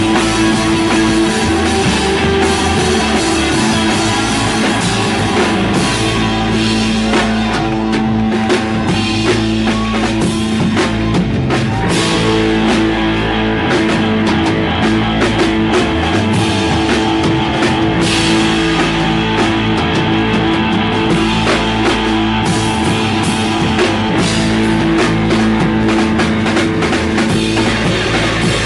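A rock band playing live: drum kit and guitar, with long-held guitar tones over steady drumming.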